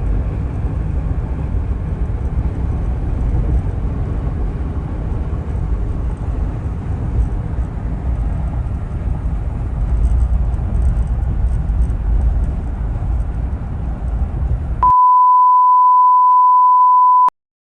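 A low, steady rumble with no clear pitch, then a loud, steady electronic beep at one pitch, about two seconds long, that cuts off suddenly near the end.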